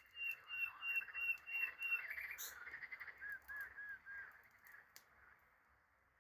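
Birds singing: a quick run of high, repeated notes at about four a second for the first two seconds, then four short down-slurred notes; the birdsong fades away near the end.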